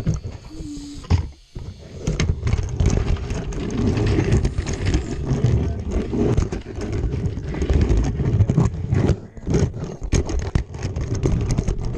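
Plastic wheels of a Lego street sweeper rolling and clattering across the floor, heard as a dense rumble with many small knocks through a camera riding on the toy.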